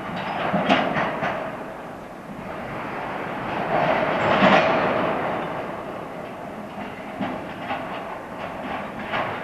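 Freight train of tank cars rolling past, its wheels clacking over the rail joints in quick groups, with a louder swell of rumbling noise around the middle.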